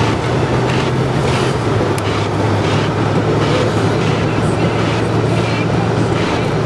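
A vehicle's engine running steadily, a constant low hum under a rushing road-and-wind noise.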